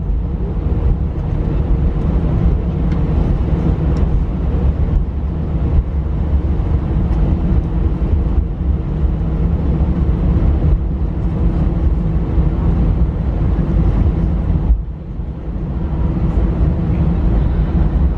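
Cabin noise of an Airbus A319 rolling along the runway after landing: a steady low rumble from the wheels and airframe, with the engines' steady hum over it. The rumble eases briefly about fifteen seconds in.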